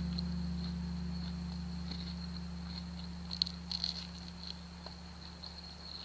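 A low sustained chord from the closing music, slowly fading. Under it runs a faint steady high-pitched tone, and a few light clicks fall about three and a half seconds in.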